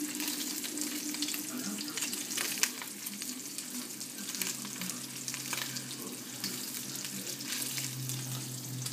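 Sliced sausage frying in hot oil in a metal pan on a gas burner while it is stirred: a steady sizzle crackling with many small pops, like popping popcorn, with one sharper pop a few seconds in.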